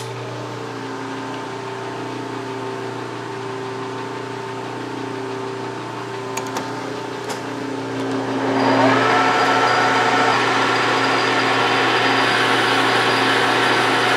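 Metal lathe started about eight seconds in: its gear whine rises as the spindle comes up to speed, then runs steady and louder. Before that there is a steady lower machine hum with a couple of light clicks.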